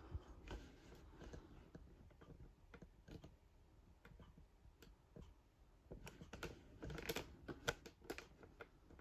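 Faint, irregular light clicks and taps of plastic K'NEX parts from the Loop-O-Plane model ride, most crowded about six to eight seconds in.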